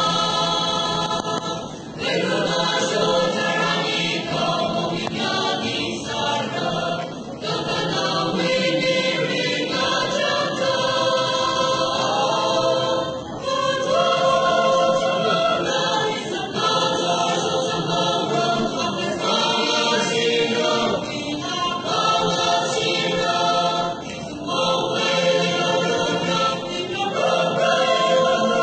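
Large church choir of men and women singing together, sustained sung phrases with brief breaks between them.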